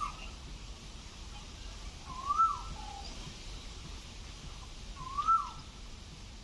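A bird calling: a short whistled note that rises and then falls, heard three times about every two and a half to three seconds.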